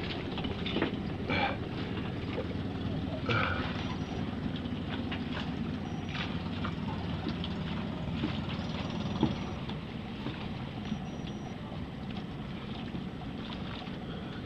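Outrigger boat's engine running steadily under way, with water and wind noise along the hull and a few brief knocks in the first four seconds.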